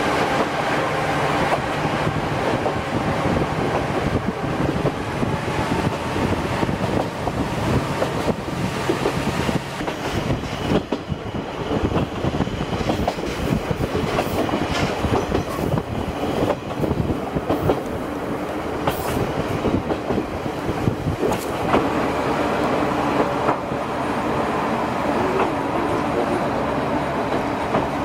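Diesel railcar running, heard from on board: a steady engine drone under wheels clicking and rattling over the rails. After about ten seconds the engine's note fades back and the clicking and rattle take over.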